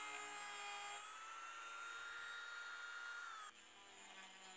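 Dremel rotary tool with a very small sanding drum whining at high speed against wood, its pitch dipping slightly as it bites. It is running too fast, scorching the wood so that it smokes instead of sanding it. About three and a half seconds in the whine cuts off abruptly, leaving a fainter low hum.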